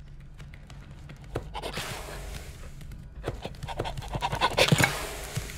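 Dog panting in quick breaths, with sharp clicks and scratches like claws on a tile floor. The panting is loudest a little before the end.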